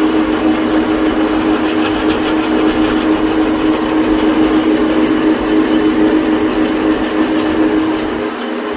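Lathe running: a steady machine hum with a constant tone and mechanical noise, without let-up.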